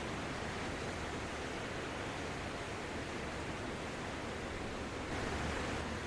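Gentle sea surf washing onto a sandy beach: a steady hiss of breaking and receding waves, swelling a little near the end.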